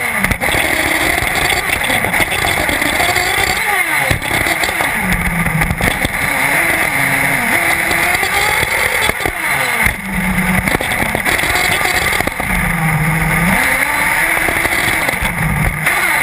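1/8-scale nitro RC buggy engine revving up and down through corners and straights, heard from a camera mounted on the buggy, over a steady rushing noise.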